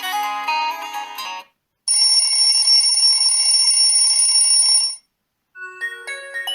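Xiaomi Redmi 7A pre-installed ringtones played one after another: a melody stops about a second and a half in, then a steady high ringing tone sounds for about three seconds and cuts off, and a new melody of quick notes begins near the end.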